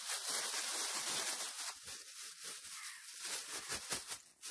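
Plastic bag rustling and crinkling as pieces of pike are shaken and worked in flour, with a few sharper crackles near the end.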